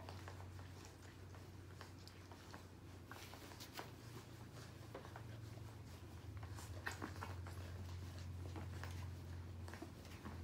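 Three-week-old Siberian husky puppies suckling at their mother: faint, scattered little smacking clicks over a steady low hum.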